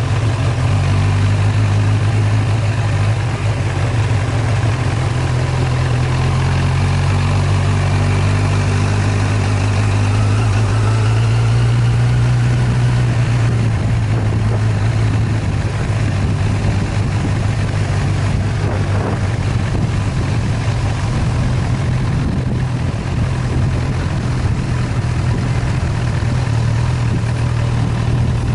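Engine of the vehicle carrying the camera, running with a steady low drone as it drives along a dirt track.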